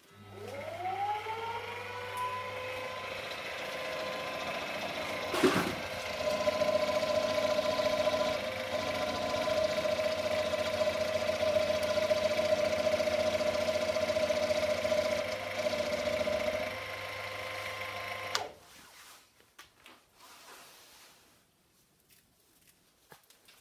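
Warco WM-14 variable-speed mini mill's spindle motor spinning up with a rising whine, then running steadily. There is a knock about five seconds in, and from about six to seventeen seconds a louder steady tone as the end mill takes the last finishing cut on the metal workpiece. The motor is switched off about eighteen seconds in.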